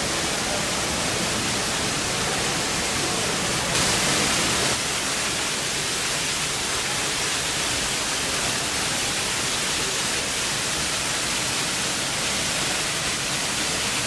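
Indoor waterfall pouring over rockwork into its pool, a steady rush of falling and splashing water. It gets briefly louder and hissier for about a second, around four seconds in.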